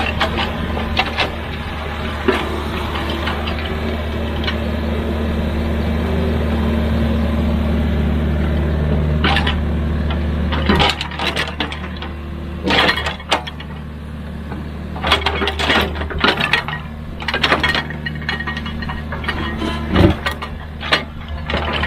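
Excavator's diesel engine running steadily under load. From about halfway in, irregular clanks, knocks and rattles come as the bucket works soil and stones.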